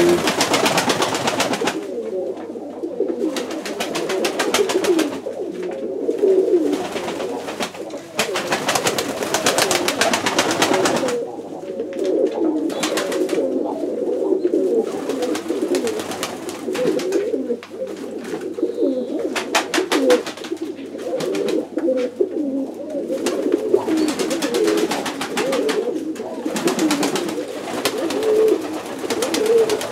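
A flock of domestic pigeons cooing continuously in a loft, many birds overlapping. Repeated bursts of wing flapping lasting one to two seconds each.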